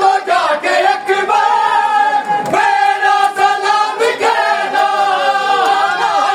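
A group of men loudly chanting a noha, a Shia mourning lament, together in unison, with long held notes.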